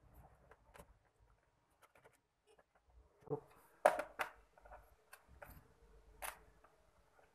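Scattered light clicks and knocks of small hard objects being handled, with louder clacks about three to four seconds in and another just after six seconds.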